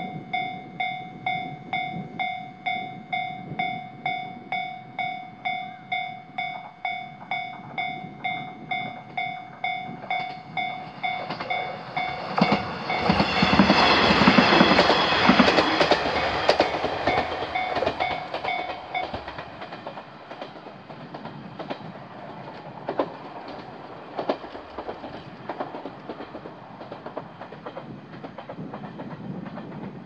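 Japanese level-crossing electronic warning bell dinging about one and a half times a second while a JR diesel railcar passes, loudest about halfway through, with its wheels clacking over the rail joints. The bell stops about two-thirds of the way in, once the train has gone.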